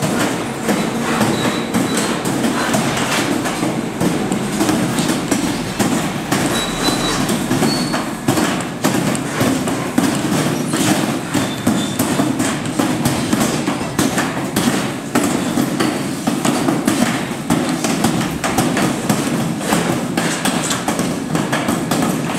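Steady clattering din of wire-mesh panel factory machinery, full of sharp, irregular metallic clicks.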